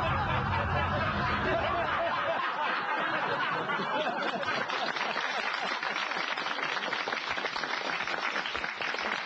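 A deep rumble, the avalanche sound effect, dies away about two seconds in under audience laughter, then a studio audience laughs and applauds steadily.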